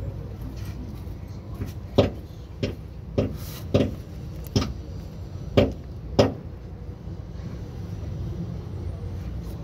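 Sharp metal clicks and knocks, about seven in four seconds, as a banjo fuel-line fitting and hose are handled against a diesel injection pump, over a steady low rumble.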